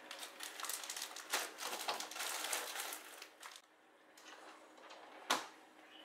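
Plastic bags of bread crusts rustling and crinkling as they are packed into a freezer drawer, with a sharp knock about five seconds in.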